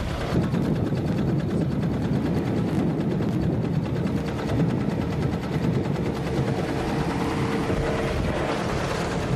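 Engine of a small drilling rig running steadily under load, with a rapid, even pulse. The sound cuts off suddenly at the end.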